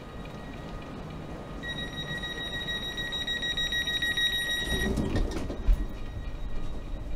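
Station platform ambience with a steady high electronic tone that sounds for about three seconds and then stops. Heavy thuds and a sharp knock follow as someone steps up into a double-deck train.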